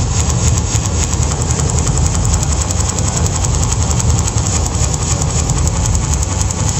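Live electronic music played loud through a PA: a heavy, steady low rumble with a grainy hiss above it.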